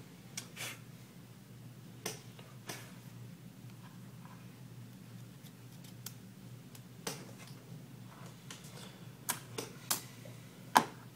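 Hands handling a smartphone and small repair tools on a rubber work mat: scattered light clicks and taps, with a sharper click near the end as a screwdriver is picked up. A low steady hum runs underneath.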